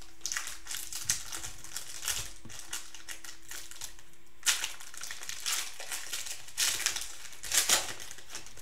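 The plastic cello wrapper of a Panini Prizm basketball card pack crinkles and tears as hands open it, in repeated short bursts. The loudest bursts come about halfway through and near the end.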